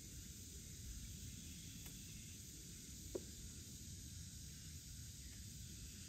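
Faint summer outdoor ambience: a steady high hiss of insects over a low rumble, with one short tick about three seconds in.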